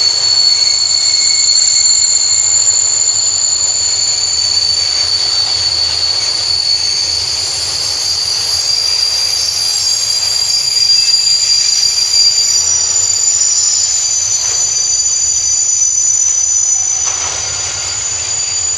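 Long freight train of open wagons rolling past, its wheels squealing in two steady high-pitched tones over the rolling noise as the train brakes toward a stop.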